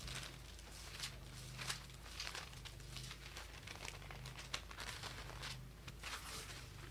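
Faint rustling of paper pages being turned, as the Bible passage is looked up, with a low steady hum underneath.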